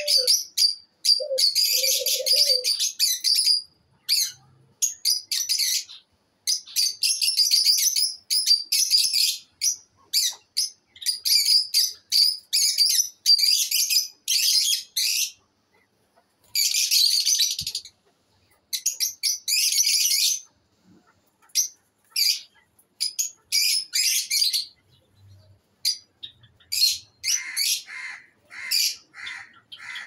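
A flock of Fischer's lovebirds chattering: shrill, rapid high-pitched chirps in bursts of a second or two with short pauses between. Two short, low coos sound in the first few seconds.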